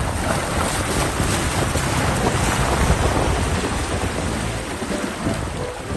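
SsangYong Rexton Sports pickup's tyres running through a shallow, rocky stream: a steady rush of water splashing and churning that swells in the middle and eases near the end.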